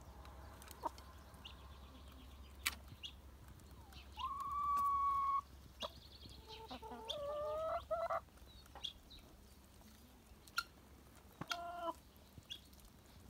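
Brown hens calling: one long, steady, drawn-out call about four seconds in, a wavering call around seven seconds, and a short call near the end, with a few scattered clicks between them.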